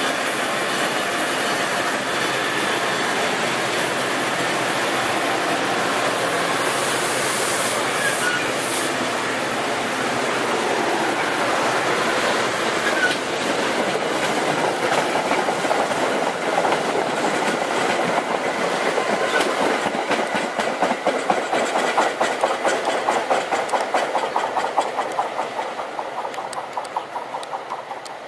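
MBTA commuter train's coaches passing close by, their wheels running loudly on the rails. About halfway through this turns into a rhythmic clickety-clack over the rail joints, which fades away over the last few seconds as the train moves off.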